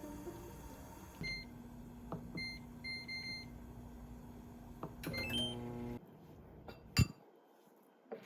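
An electronic household appliance beeps several times as its buttons are pressed, over a steady electrical hum. A short run of beeps at two pitches comes about five seconds in, the hum cuts off suddenly about a second later, and a single sharp click follows near the end.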